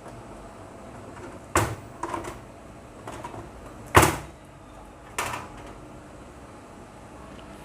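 Hardware being handled: four sharp knocks and clunks, the loudest about four seconds in, as an NVR's casing and hard drives are set down and moved.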